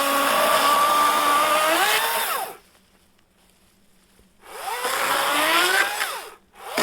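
Wild Badger 40-volt cordless chainsaw's electric motor whining as it cuts sawmill slab wood, in two runs of a couple of seconds each with a pause between. The pitch climbs near the end of each run before it stops, and a brief burst follows at the end.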